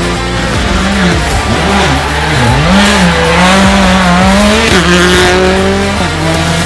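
Citroën C3 rally car's engine revving hard through a corner. Its pitch dips and climbs several times as the driver lifts off and gets back on the throttle, then drops near the end.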